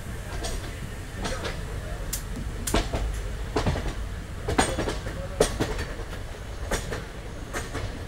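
Passenger train running along the track, heard from on board the coach: a steady low rumble with irregular sharp clicks and knocks from the wheels passing over rail joints.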